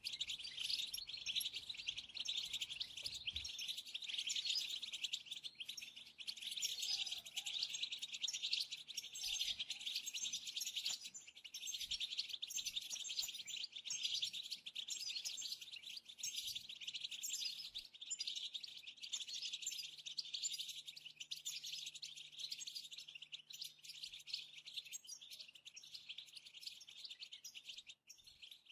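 European goldfinches twittering, a dense run of fast high chirps and trills that goes on without a break.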